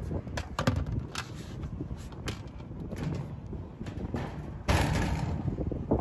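Sheet-metal access panel of a Trane packaged rooftop unit being handled and fitted back on: a series of light metallic knocks and clicks, then a louder, longer burst of noise about five seconds in.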